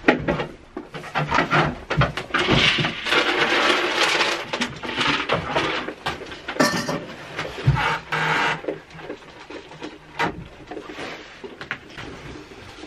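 Repeated knocks and scuffs of a goat's hooves on a wooden milking stand, mixed with rustling and clatter while the goat feeds from a plastic bucket.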